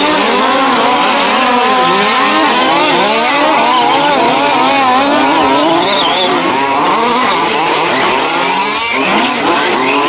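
Several 1:5-scale petrol RC cars' small two-stroke engines racing together, each pitch rising and falling as the cars rev up on the straights and back off into the corners.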